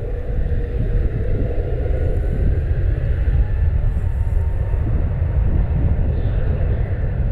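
Airbus A321neo's twin jet engines spooling up for a rolling takeoff (a turn and burn): a steady deep rumble, with a faint whine rising about two seconds in.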